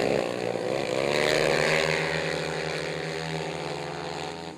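Engines of two racing quad ATVs at high revs, their pitch rising and falling as the riders work the throttle through the turn. Loudest in the first couple of seconds, then fading as they pull away down the straight.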